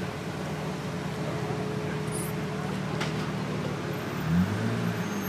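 Pagani Zonda Cinque's 7.3-litre V12 idling steadily, then a short rise in revs about four seconds in.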